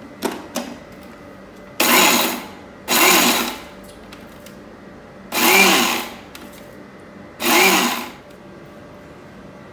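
Preethi mixer-grinder motor pulsed four times in short bursts, each one spinning up and winding down, grinding roasted coconut-spice masala in a steel jar. Pulsing only briefly keeps the masala dry and loose rather than pasty. A few light clicks come first as the jar is seated on the base.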